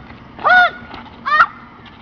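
Two short, high-pitched squeals from a young person's voice, each rising and then falling in pitch, the first about half a second in and the second a little after a second.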